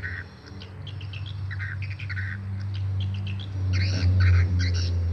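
Swiftlet calls: quick clusters of twittering chirps that grow busier and louder about four seconds in, over a steady low hum.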